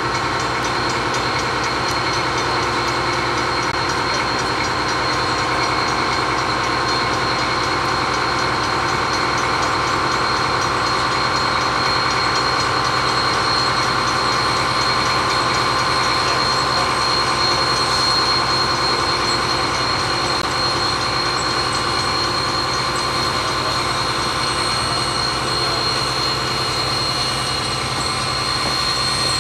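Narrow-gauge steam locomotive No. 152 running slowly toward the camera and past, pulling its coaches. It makes a steady mix of rumble and hiss without separate chuffs.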